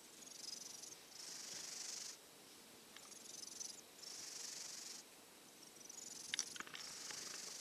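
Silver tabby kitten, recovering from a cold, snoring faintly in its sleep: a raspy, hissing rush of air on each breath in and out, coming and going in an even rhythm. A few small sharp clicks come near the end.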